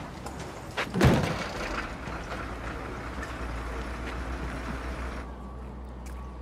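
A heavy van door slams shut about a second in, over a steady low rumble. The higher sounds drop away near the end.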